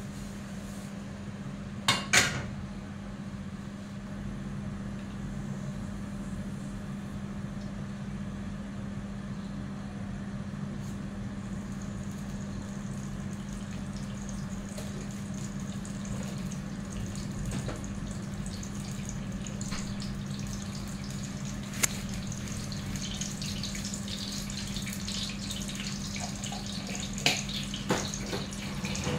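Oil heating in a frying pan on a gas burner: a metal clatter about two seconds in as the pan is set on the burner grate, then faint sizzling that builds into denser crackling toward the end as cumin seeds go into the hot oil. A steady low hum runs underneath, and there are a couple of sharp knocks near the end.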